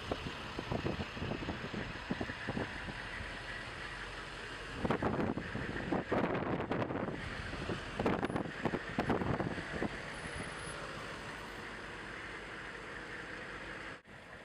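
Steady road and engine noise from a moving vehicle driving behind a convoy of military Humvees. Wind buffets the microphone in rough gusts from about five to ten seconds in.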